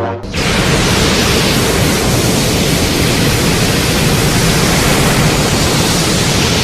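Godzilla sound effect: a loud, steady rushing hiss of noise that starts abruptly about a quarter second in, just as a pitched roar cuts off, and holds evenly.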